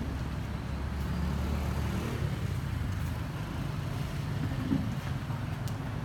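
Low, steady rumble of a motor vehicle engine running, with a faint tick near the end.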